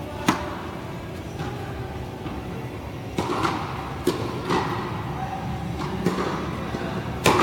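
Tennis rally: the sharp pop of the ball off the strings and its bounces on the court, a single impact every second or so, with the loudest hit near the end.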